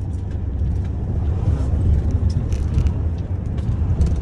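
Steady low rumble of a car driving, heard from inside the cabin, with a few faint clicks and rattles.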